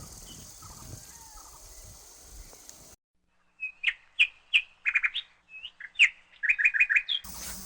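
Faint outdoor ambience; about three seconds in it cuts to silence, and then a small songbird sings a clear phrase of sharp chirps and quick runs of repeated notes for about three and a half seconds.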